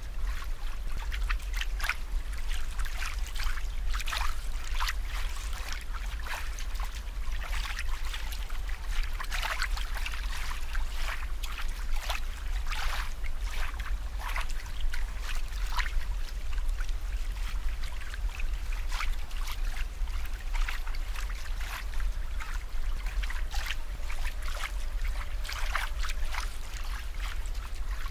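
Water trickling and bubbling in a continuous irregular crackle, over a steady low hum.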